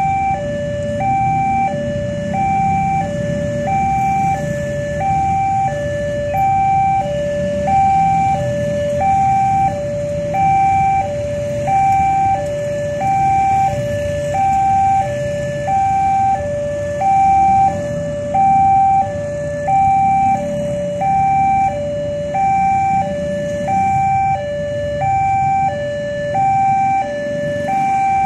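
Indonesian railroad level-crossing warning alarm sounding steadily: an electronic two-tone signal that swaps between a high and a low tone about once every half second, warning that a train is approaching. The engines of motorcycles waiting at the crossing rumble underneath.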